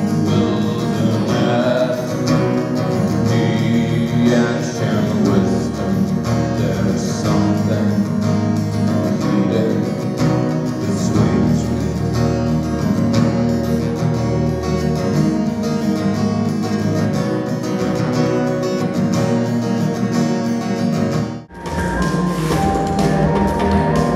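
A man sings live to his own strummed acoustic guitar. Near the end a sudden cut brings in electronic music: short repeated high tones over a heavy low drone.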